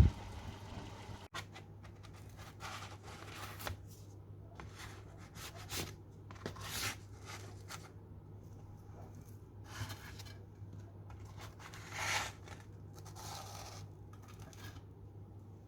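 A series of short scraping and rustling strokes, about a dozen at uneven intervals, the loudest about seven and twelve seconds in, over a faint steady low hum.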